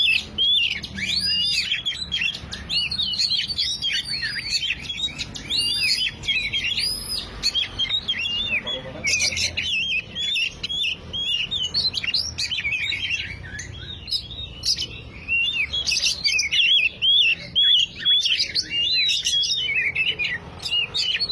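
Oriental magpie-robin singing a rapid, continuous run of varied whistled phrases, high-pitched and full of swooping notes, with only brief pauses.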